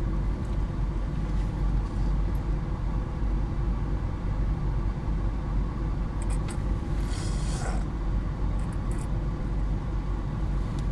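Steady low rumble of a car, heard from inside the cabin, with a short hiss about seven seconds in.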